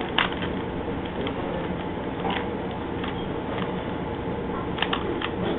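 Plastic Rubik's Cube being twisted by hand: irregular quick clicks and rattles of the turning layers, over a steady background hiss.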